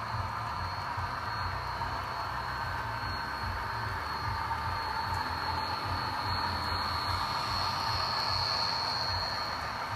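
HO scale model trains running past on a layout's double track, a freight and a passenger train led by two F40PH locomotives: a steady hum of small motors and wheels on track with a thin high whine, slightly louder as the passenger train runs close by in the second half.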